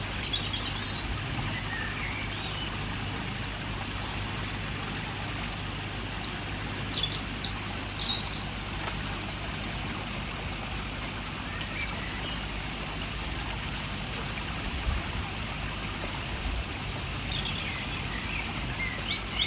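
Water trickling and splashing steadily into a koi pond, with a bird chirping in two short spells, about seven seconds in and again near the end.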